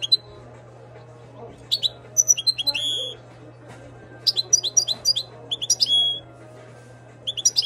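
European goldfinch (Moroccan) singing in a cage: three bursts of rapid twittering chirps, each ending in a short held note, over a low steady hum.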